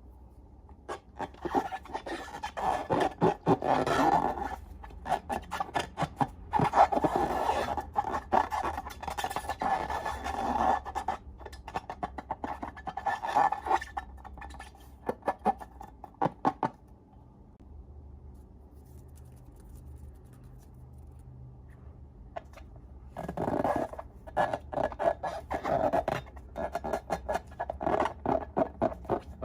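Slime being squished and worked by hand, a dense run of small sticky pops and crackles in long stretches with a quieter pause of several seconds in the middle.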